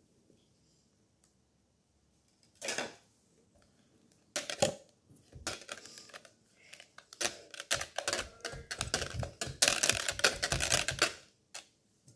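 Wire whisk stirring kinetic sand in a plastic measuring jug: quick ticking and scraping of the wires against the jug and through the sand. After one short scrape, the strokes come in an irregular run that gets faster and denser, then stop shortly before the end.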